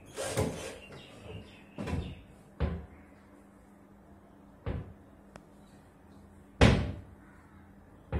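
Hinged engineered-wood door panels of a box bed's headboard cabinet being swung open and shut, knocking and banging against the frame about six times; the loudest bang comes about six and a half seconds in.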